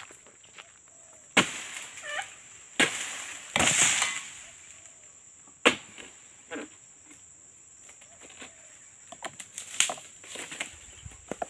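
Sharp snaps and knocks with rustling of dry oil palm fronds as a long-poled harvesting sickle works at the palm's crown, irregular and scattered. A steady high whine runs underneath.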